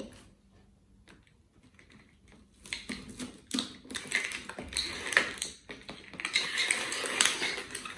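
Plastic bottles and cardboard clicking and crackling under hands as a cardboard face is pressed onto a plastic-bottle model's head. Nearly quiet at first; the quick, irregular clicks and rustles start about two and a half seconds in.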